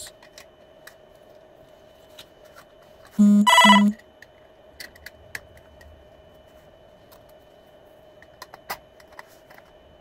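A phone rings briefly about three seconds in: two short electronic tones close together, the loudest thing here. Around it, faint light clicks as the metal and plastic parts of a disassembled DVD drive are handled.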